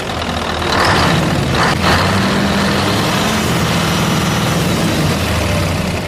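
A heavy truck engine idling steadily, low and even.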